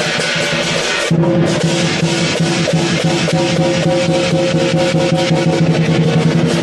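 Lion dance percussion: a drum beaten in a fast, even beat over a wash of clashing cymbals and sustained ringing tones. About a second in the mix changes abruptly and a louder, lower ringing tone comes in.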